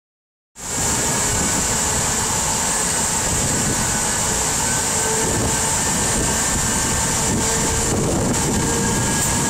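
Steady industrial machinery din: a constant low rumble with a high hiss and a few faint steady tones, starting just over half a second in and holding level throughout.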